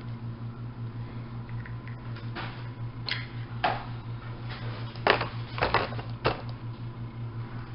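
Small plastic toy packaging being handled: a handful of short clicks and crinkles starting about two seconds in, over a steady low hum.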